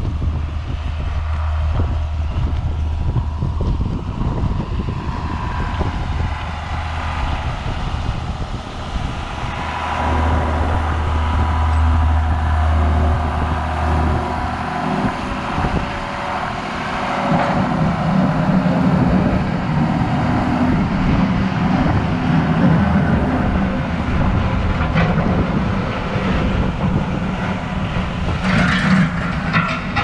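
John Deere 7610 tractor's six-cylinder diesel engine running steadily while clearing snow with its front bucket. A little past halfway its note rises to a higher pitch and stays there as the engine revs up.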